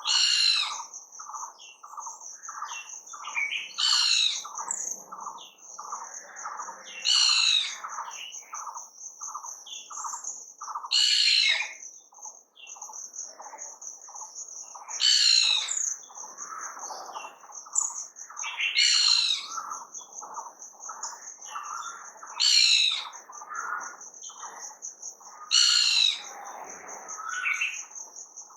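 Wild birds singing. One bird repeats a loud, short, high song phrase about every four seconds, over a steady high trill and a fast run of lower notes at about three a second.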